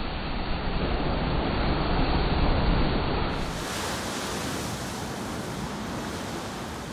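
Rushing spray and churning water after an orange enclosed lifeboat plunges into the water, with the noise slowly dying down. About three seconds in it changes to a brighter, hissier wash of spray around the surfacing boat.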